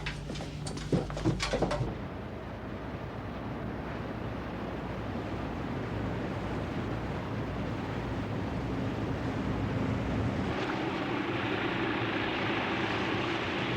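A few knocks and clatters of furniture being shifted, then a steady rushing noise of a warship underway in wind and sea, slowly growing louder and hissier about ten seconds in.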